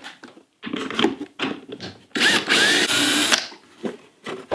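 Cordless drill/driver backing screws out of a thin MDF panel. Two short bursts come first, then a longer run of over a second with a rising whine, starting about two seconds in.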